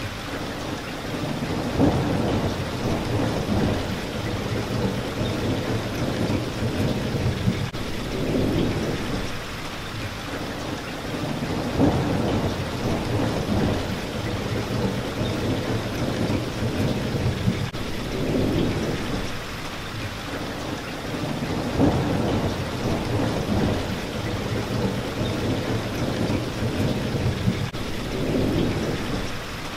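Steady rain hitting a window pane, with low rumbles of thunder swelling and fading every few seconds. A sharp tick recurs about every ten seconds, the loudest moments.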